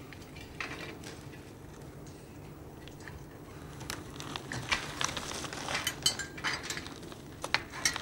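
Footsteps through twigs and forest litter with the light clinking and rattling of carried metal ladder sections, the clicks and knocks coming more often and louder from about halfway.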